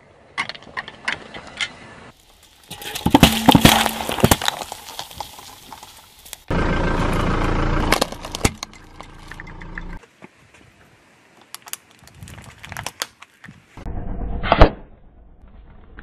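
Objects crushed one after another under a slowly rolling car tyre: metal jar lids and plastic toys snapping and crunching, as a series of separate crunches and cracks with short gaps, ending in a sharp loud crack.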